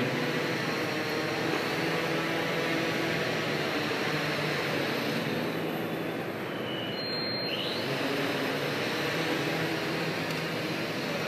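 Workhorse multirotor delivery drone's propellers humming steadily, the hum easing off about halfway through as it sets down on the floor to leave its package, then building again as it lifts off.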